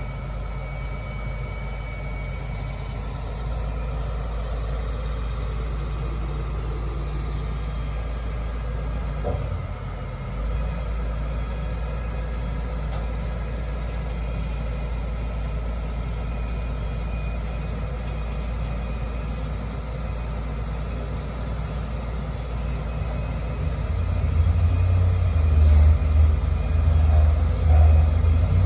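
Diesel engine of a Volvo EW205 wheeled excavator running steadily, then growing louder and heavier about three-quarters of the way through as the machine works its way up the loading ramps onto a truck.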